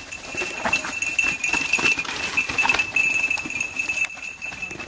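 Mountain bike rolling down a rough dirt trail, rattling and clattering as it bumps over roots and stones, over a steady high-pitched hum.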